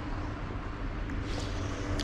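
Low rumble of wind on the microphone with a faint, steady engine hum in the distance.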